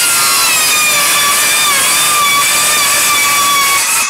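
Battery circular saw, its blade mounted backwards, cutting through two stacked vinyl soffit panels. It runs loud and steady with a high, slightly wavering whine, and the cut ends just at the close, where the noise drops away.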